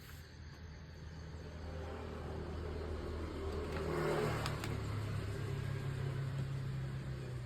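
A motor vehicle engine runs, growing louder and rising in pitch about four seconds in, then holding steady.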